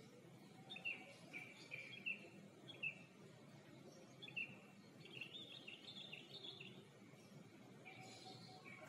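Faint outdoor background noise with small birds chirping on and off in short runs of high notes.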